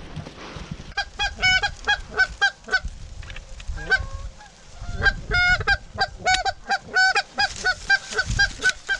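Geese honking in quick series, starting about a second in, easing off briefly around the middle, then honking steadily again.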